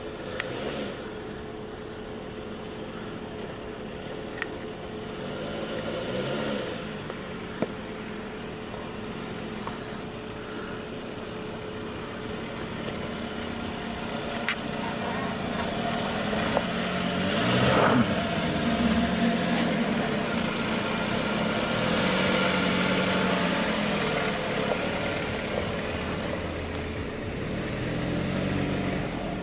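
Jeep Renegade's engine working at low speed as it crawls over rock ledges, its note rising and falling as the throttle comes on and off, with a few sharp knocks from the tyres and underbody on rock. It gets louder through the middle, the loudest knock about two-thirds of the way in.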